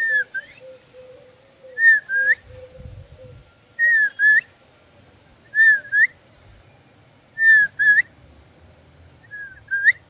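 A clear two-note whistle, each note dipping and then rising in pitch, repeated six times about every two seconds.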